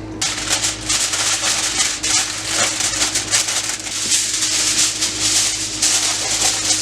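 A hand working seasoning and mustard around inside a raw turkey: a dense, crackly, wet rustling and squishing with many small clicks.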